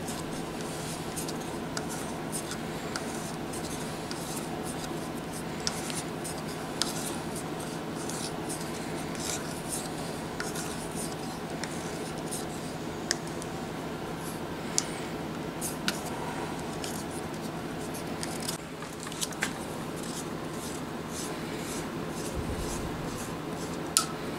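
Hand tap being turned with a T-handle tap wrench, cutting threads in a 6061 aluminium block for a 1/2-13 Helicoil insert. It gives scattered small scraping creaks and sharp ticks as the tap cuts, over a steady background hum.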